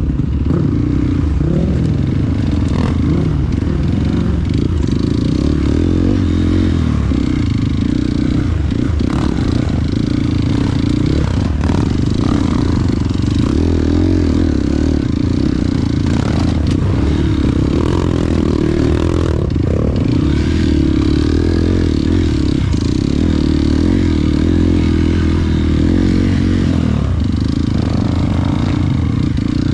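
Off-road motorcycle engine running under changing throttle, its pitch rising and falling, with scattered knocks and rattles from riding over rough, dry-mud ground.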